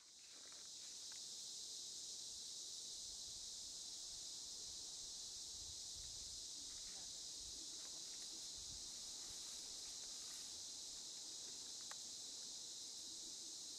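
Steady high-pitched chorus of insects that fades in at the start and then holds unbroken.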